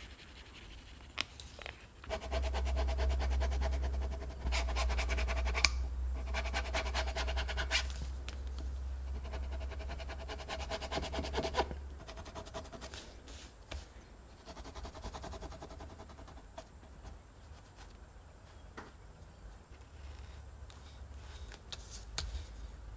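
Hand tools scraping and rubbing on leather. For about ten seconds there are several runs of fast, rasping strokes, then quieter scrapes of a skiving knife along a leather edge, with a few light clicks.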